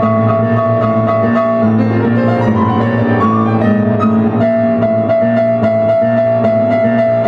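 Piano played live: a busy stream of quick notes over held lower notes.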